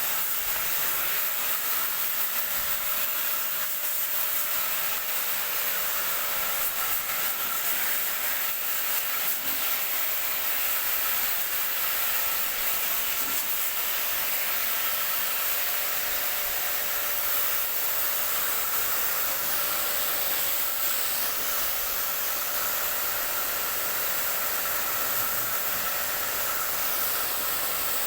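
Water spraying in a steady, unbroken hiss, with a faint steady hum under it.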